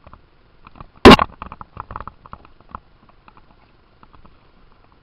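A loud close knock about a second in, then a quick run of lighter clicks and knocks lasting under two seconds.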